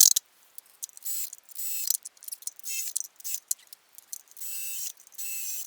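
A power drill/driver whirring in about ten short, high-pitched bursts, starting and stopping, as #14 roofing screws are driven into steel decking.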